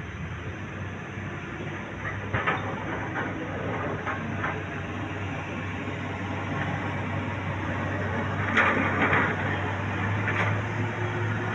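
Excavator's diesel engine running steadily, with a few metallic clanks and rattles. The loudest clank comes about three-quarters of the way through.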